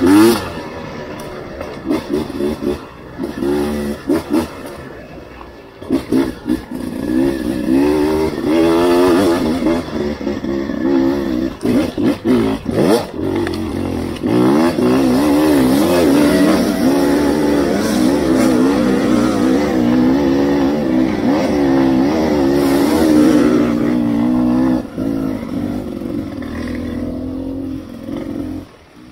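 Two-stroke Beta 300RR enduro motorcycle being ridden, its engine revving up and down with the throttle. It dips on and off in the first few seconds, is held at high revs through the middle, then eases off and drops away near the end.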